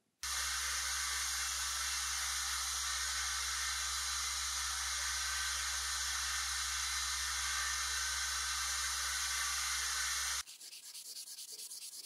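Belt grinder running steadily with a low motor hum while a steel knife blade is ground against the belt, giving an even hiss that stops suddenly near the end. It is followed by quicker, quieter rubbing strokes of the blade on a sharpening stone.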